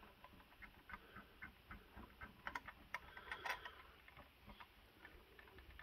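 Faint, irregular small clicks and ticks as the screws of a CPU cooler's mounting bracket are threaded in on a motherboard, a few threads each, a little busier about halfway through.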